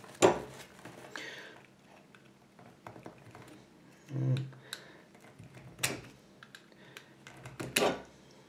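Scattered small clicks and light metallic taps of a hand tool working against a bike lock's pin housing while prying at the press-fit cap over the pins, with a few sharper clicks spread through.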